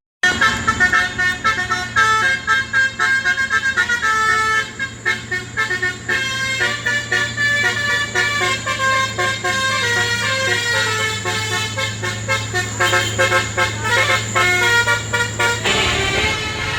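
A truck's telolet horn, a set of multi-tone horns, tooting a quick melody of short notes over a steady low engine hum. The notes stop near the end.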